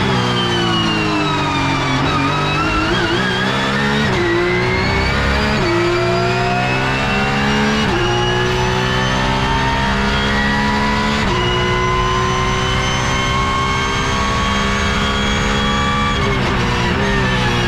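Porsche 911 GT3 Cup (992)'s naturally aspirated 4.0-litre flat-six, heard from inside the cockpit at racing speed. The engine note falls over the first two seconds as the car slows, then climbs hard through the gears with a sharp drop at each upshift, and falls again near the end under braking and downshifts.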